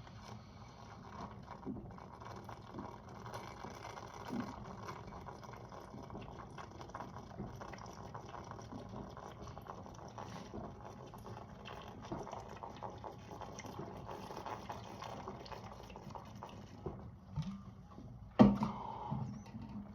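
Mountain Dew being chugged from a bottle: a steady fizzing liquid hiss with small irregular gulps and clicks. A short, loud sound from the drinker comes near the end.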